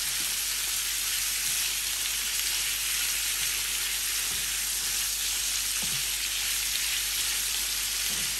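Sliced chicken breast sizzling in melted butter in a nonstick frying pan: a steady hiss, with a spatula now and then scraping and turning the pieces.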